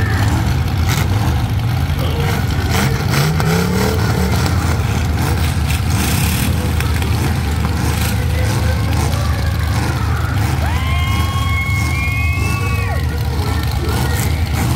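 Truck engines running with a heavy, steady low rumble, one revving up briefly a few seconds in. About ten seconds in, a held pitched tone sounds over them for roughly two seconds, sliding up at the start and down at the end.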